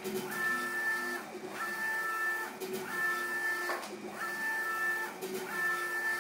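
Apache UV flatbed printer's print-head carriage shuttling back and forth across the bed. Each pass carries a steady two-pitched whine lasting just under a second, broken off briefly as the carriage reverses, about five passes in all.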